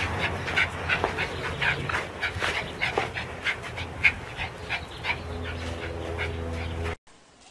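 Small white-and-tan terrier panting in quick, short breaths, about three a second, over a steady low hum. The sound cuts off suddenly near the end.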